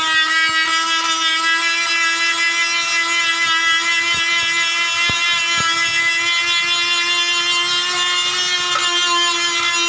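Electric die grinder running at a steady high whine, its small spinning bit scouring rust off the inside of a cut-open motorcycle fuel tank. A few sharp ticks sound through it.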